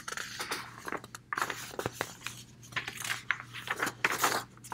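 Paper worksheet sheets rustling, crinkling and tapping as they are handled and turned, in irregular bursts with a few sharp clicks. A faint steady low hum runs underneath.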